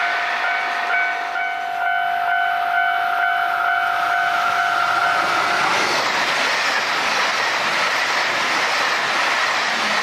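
Train sounding a long steady horn as it approaches the level crossing. The horn cuts off about five and a half seconds in, and the train's wheels on the rails swell into a loud rush as it passes.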